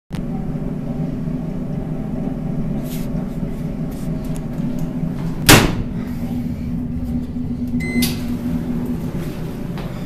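Steady low mechanical hum from around a Speed Queen commercial dryer. One loud knock comes about halfway through, and a short electronic beep followed by a knock about eight seconds in.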